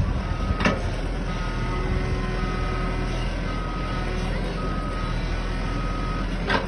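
Excavator's motion alarm beeping about once a second, six or so evenly spaced beeps over a running diesel engine. A sharp knock comes about half a second in and another near the end.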